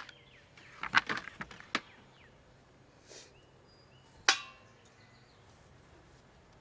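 Handling noise: a sharp click at the start, a quick run of clicks and knocks about a second in, and a louder knock with a brief ring about four seconds in as the camera is moved.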